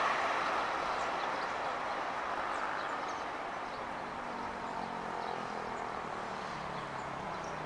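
Airbus A320 jet engines on final approach: a steady rush of engine noise that slowly fades as the airliner passes low and touches down on the runway.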